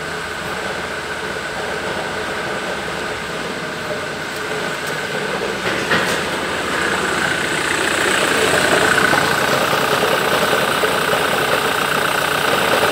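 Ford Mondeo Mk3 2.0 TDCi four-cylinder common-rail diesel (FMBA) idling steadily with diesel clatter, louder from about eight seconds in.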